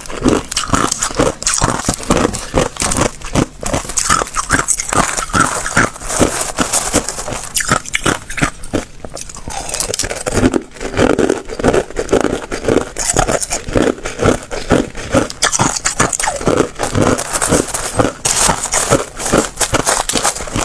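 Hard ice cubes being bitten and chewed close to the microphone: a dense, rapid run of cracks and crunches.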